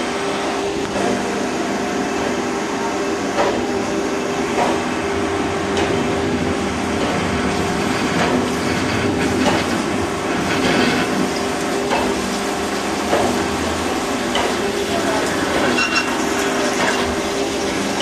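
CNC lathe drilling SS316 stainless steel with a twist drill under flood coolant: the steady hiss and splash of coolant spraying over the spinning workpiece, over a steady machine hum.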